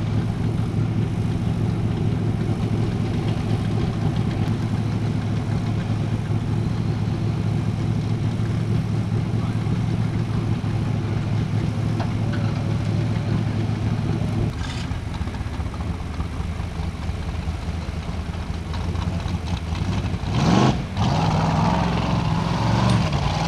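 A heavy engine idles steadily, and its drone changes about fourteen seconds in. Near the end a Formula Offroad buggy's engine revs up sharply once, the loudest moment, and keeps running.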